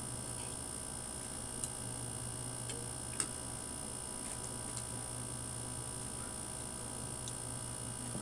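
A few light, scattered clicks, the clearest about three seconds in, over a steady electrical hum and hiss.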